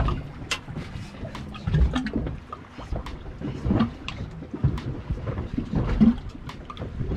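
Wind buffeting the microphone over choppy water slapping a boat's hull, with scattered knocks and thumps.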